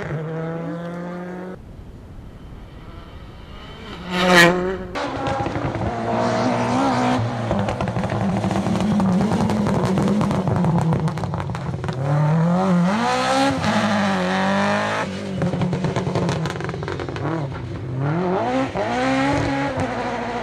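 Rally cars' engines revving hard as they pass, the pitch climbing and dropping repeatedly with gear changes and lifts off the throttle. A short, sharp, loud burst about four seconds in is the loudest moment.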